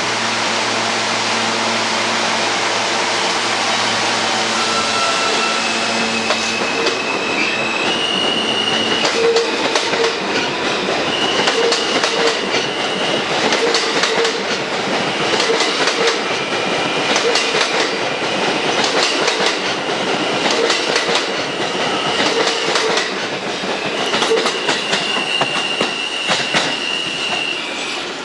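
Alstom R160B subway train pulling out of a station. First a steady motor hum, then the steel wheels click over rail joints in a repeating clatter, with high squealing tones that come and go as the cars pass.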